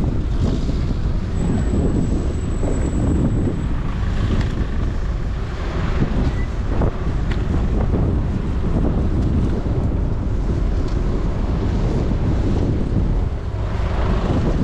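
Wind buffeting the microphone of a moving rider, a steady loud rush with most of its weight low, over traffic noise.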